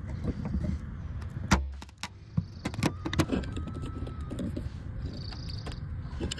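Metal hand tools clicking and knocking against a glue-pull dent-repair tab on a car body panel, with one heavier thump about one and a half seconds in.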